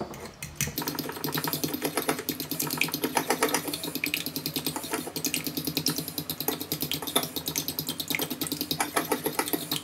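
A metal fork whisking a thick mayonnaise dressing in a ceramic bowl: rapid, regular clicking of the tines against the bowl with a wet stirring sound underneath.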